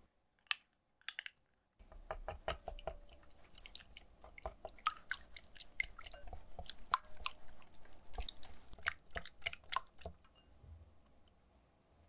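Wire whisk beating eggs, mayonnaise and yogurt in a glass bowl: quick, irregular clicks of the whisk wires against the glass over a wet squelching of the mixture, starting about two seconds in and dying away near the end. Before it, a couple of brief soft squirts as mayonnaise is squeezed from its bottle.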